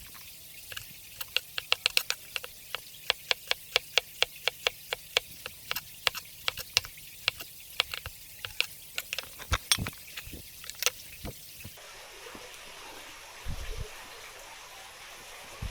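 Rapid, irregular sharp clicks and clacks, several a second, as hard objects knock together in kitchen prep. About twelve seconds in, water starts running, with a dull thump shortly after.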